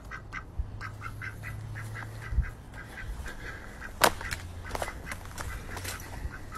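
Domestic ducks quacking in a steady run of short calls, with a sharp knock about four seconds in.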